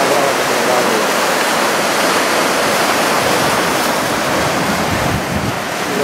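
Steady rush of small surf breaking and washing up the shore, with wind on the microphone and a low rumble from a gust about five seconds in.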